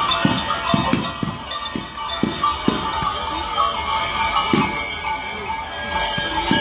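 Many large Swiss cowbells (Treicheln) clanging together. The Einscheller are swinging them on wooden yokes, two bells per man, with irregular heavy strokes under a constant ringing.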